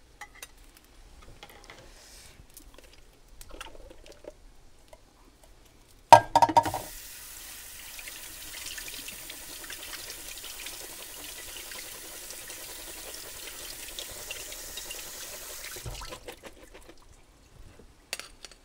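Kitchen tap running water into the sink for about ten seconds, rinsing canned beans in a metal strainer. It begins with a loud clank about six seconds in and stops about three seconds before the end, followed by a few light clicks.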